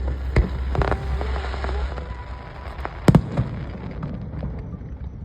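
Aerial fireworks bursting: sharp bangs shortly after the start and around a second in, with crackling between them, and the loudest bang about three seconds in.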